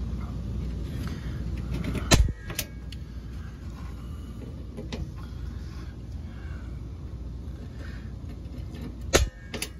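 Neiko automatic spring-loaded center punch pressed onto black sheet metal, firing twice with a sharp snap and a brief metallic ring, each snap followed by a lighter click.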